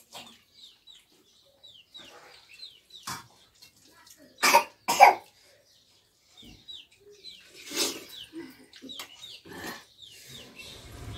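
A person coughs twice, loud and close together, about four and a half seconds in, with a smaller cough-like burst a few seconds later. Behind it, faint clicks of eating from steel plates and short, high chirps repeating.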